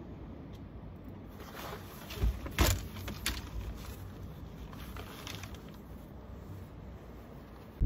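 Steady low outdoor rumble, with a few knocks and short rustles close to the microphone, the loudest about two and a half seconds in and another shortly after three seconds.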